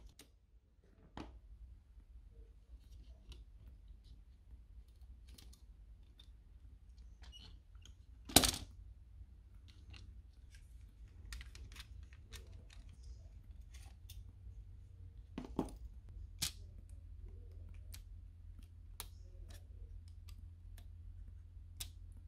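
Scattered small clicks and taps of plastic parts and metal tweezers as a PS4 DualShock 4 controller is taken apart, with one sharp knock about eight seconds in. A faint low hum runs underneath.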